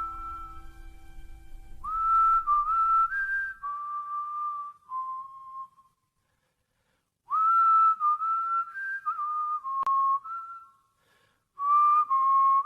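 A whistled slow melody: a single clear tone stepping between notes in three phrases, with brief silences between them.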